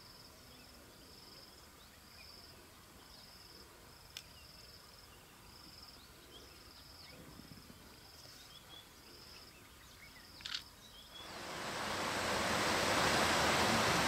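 Faint, high insect chirping in short repeated pulses over quiet bush ambience, with two sharp clicks. About eleven seconds in, a loud steady rushing noise swells up and takes over.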